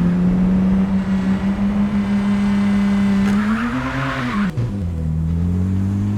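Race car engine running with a steady drone. About three and a half seconds in, its pitch rises and falls in a short rev, with a burst of hiss, and it then settles back to a lower, steady note.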